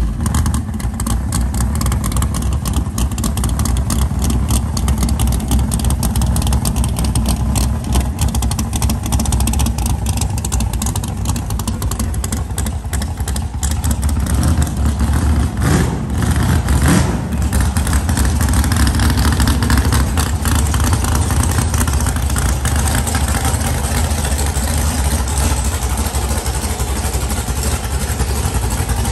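Big-block Chevy V8 in a Fox-body Mustang drag car running loud just after start-up, idling and pulling the car along slowly at low throttle.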